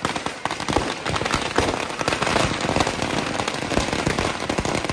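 A dense, rapid string of firecrackers bursting inside a burning Dasara effigy of Ravana, many cracks a second with no pause.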